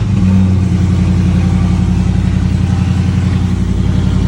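Dodge Charger Scat Pack's 392 HEMI V8, fitted with catless mid-pipes, idling loud and steady at fast idle after a cold start, with a choppy exhaust pulse.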